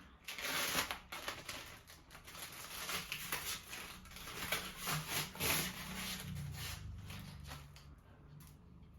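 Packaging rustling and crinkling as parts of a new coffee machine are unwrapped and handled, with many small scrapes and knocks, dying down near the end.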